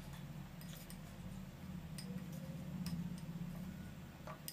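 Steel spoon stirring a thick, oily spice paste in a ceramic bowl: a few faint, scattered clicks of the spoon against the bowl over a low steady hum.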